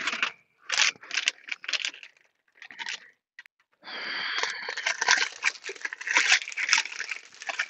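A plastic storage basket scraping out from under a counter, with plastic food canisters knocking, then from about four seconds in the steady crinkling of plastic food packaging as hands rummage through it.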